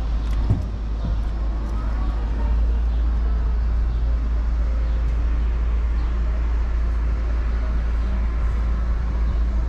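Steady city street noise: a constant low rumble of traffic with faint background voices, and a single knock about half a second in.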